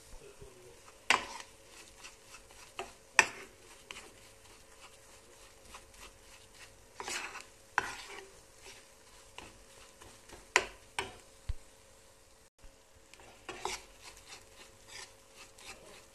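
Metal spoon stirring and scraping a thick, crumbly mix of flour and butter in a stainless steel pan, with sharp knocks of the spoon against the pan every two or three seconds. The flour is being toasted in butter until golden and has begun to release the butter.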